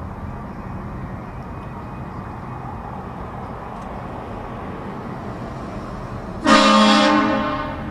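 Steady background noise, then about six and a half seconds in a vehicle-mounted air train horn gives one loud blast, a chord of several notes held for about a second that tails off.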